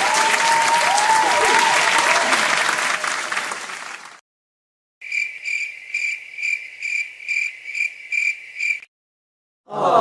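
Crowd applause with whistles, cut off about four seconds in; after a short silence, a cricket chirps steadily, about two and a half chirps a second, for nearly four seconds, the stock "crickets" sound effect. Another sound starts just at the end.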